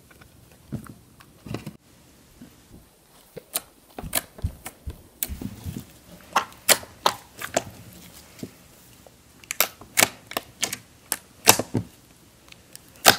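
Hand-kneaded slime being folded and pressed, giving many sharp, irregular clicks and pops as air pockets in it burst. The pops are sparse at first and come thick and fast from about three seconds in.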